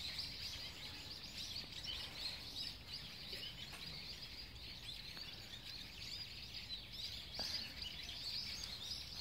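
Faint twittering of many small birds: quick, high chirps overlapping one another.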